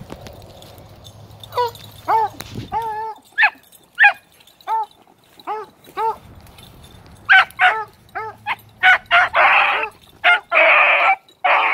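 Beagle pups barking and baying on a trail: a string of short, rising-and-falling barks begins about two seconds in and comes faster and louder in the second half, with a few longer, rougher calls near the end.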